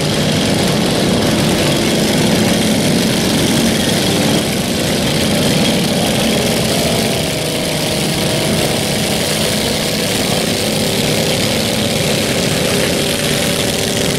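Several riding lawn mower engines running at once. The sound is steady, with several engine tones that waver slightly as the mowers drive about.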